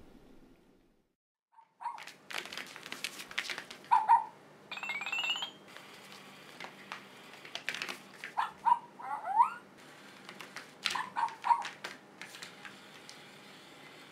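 Robotic toy dog giving short electronic barks and whines, mixed with scattered sharp clicks and clatter. The sound starts about two seconds in, after a moment of silence.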